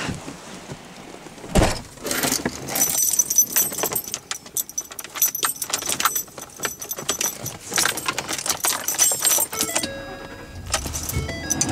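Small metal objects jingling and rattling with scattered clicks and knocks, as someone moves about inside a vehicle cab. A few brief steady tones sound near the end, then a louder low rumble starts.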